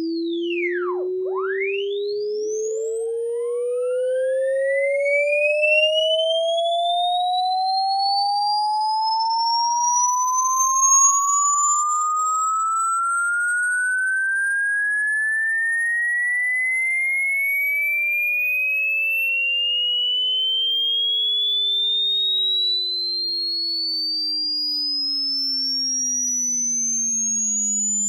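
Electronic sine-wave tones gliding slowly in pitch. One pure tone rises steadily from low to very high through the whole stretch, while a fainter tone falls from high to low.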